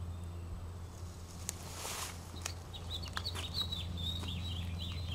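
A small songbird chattering: a fast run of short, high, down-slurred notes that starts about two and a half seconds in and keeps going, after a brief rustle.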